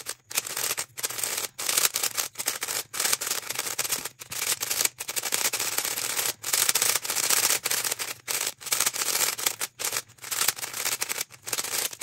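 A plastic 3x3 speed cube turned rapidly by hand, its layers rasping and clicking in a continuous, uneven stream broken by brief pauses. It is being scrambled to spread freshly applied Maru lube evenly through the mechanism.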